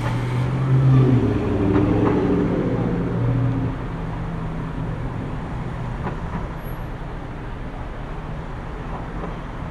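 City street traffic: a steady low rumble of engines, with one vehicle's engine louder for the first three to four seconds as it passes, then falling back into the general hum.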